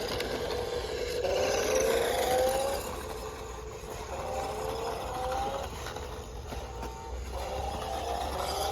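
Toy RC monster truck's electric drive motor and gears whining, rising in pitch as the truck accelerates, about three times.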